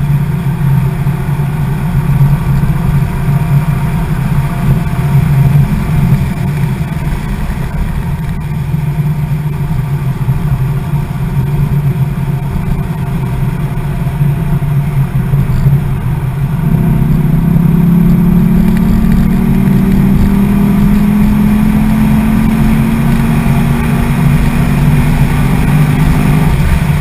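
2009 Corvette Z06's 7.0-litre LS7 V8 heard from inside the cabin at speed. About two-thirds of the way in it gets louder and its pitch climbs steadily as the car accelerates, holding the rise until near the end.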